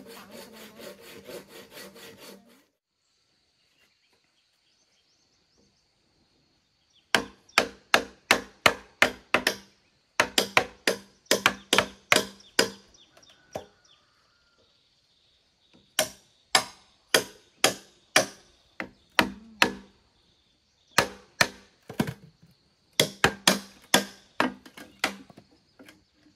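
Hand saw cutting wood in quick, even strokes, which stop after about two and a half seconds. After a few seconds' pause, wood is chopped with a blade in bursts of five to seven sharp blows, about three a second, with short rests between bursts.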